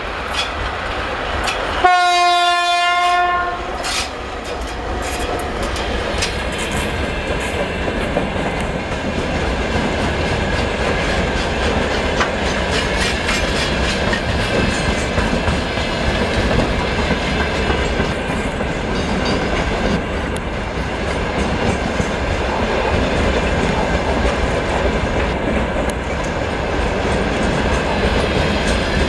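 VL80S electric freight locomotive sounds one horn blast of about a second and a half near the start, then it and its freight train roll past with a steady rumble and the wheels clicking over the rail joints.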